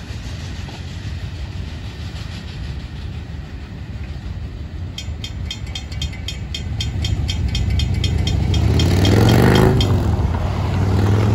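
Railroad crossing bells ringing in quick, even strokes, about four a second, while the crossing gates go up. Road vehicles then drive over the crossing, the first one passing close by as the loudest sound near the end, over a low rumble.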